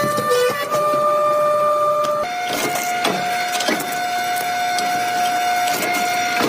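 An electric power tool's motor whines steadily while a refrigerator compressor is worked apart. Its pitch steps up a little about two seconds in, and metal clicks and knocks come in at irregular intervals.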